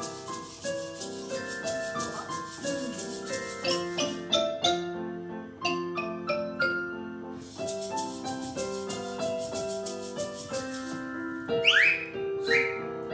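A waltz tune played by a noise orchestra: a melody of pitched notes with rapid shaker rattling in two passages, and near the end several high whistles that slide downward in pitch.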